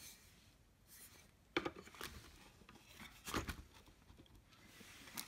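Painted wooden chair parts being handled and fitted together: a few light knocks with faint rubbing of wood on wood between them.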